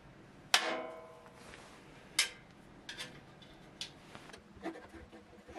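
Metal tool clinking against the jointer's cast-iron base: one sharp clink about half a second in that rings on briefly, a second sharp clink about two seconds in, then a few faint ticks.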